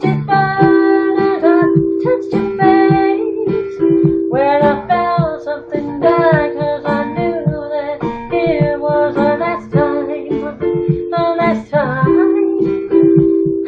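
A woman singing a slow pop ballad over a plucked acoustic string accompaniment, the voice holding long notes above an even, repeating picked pattern.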